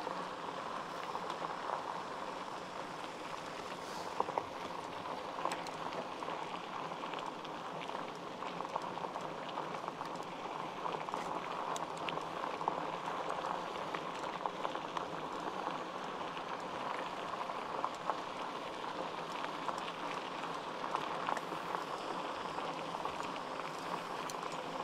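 Light rain (drizzle) falling steadily as an even hiss, with scattered sharp ticks of drops.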